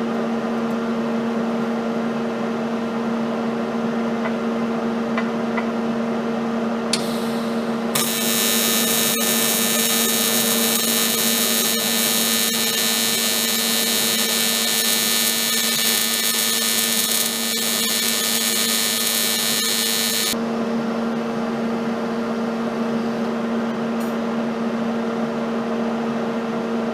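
TIG welding machine humming steadily; about seven seconds in there is a short hiss, then the TIG arc buzzes loudly for about twelve seconds while welding the frost crack in an aluminium Rotax 125cc cylinder, and cuts off abruptly.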